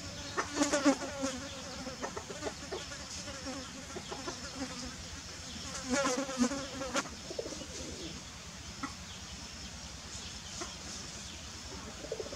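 Two short bursts of rapid pitched animal calls, the first about half a second in and the second about six seconds in, each lasting about a second, over a steady high hum in the background.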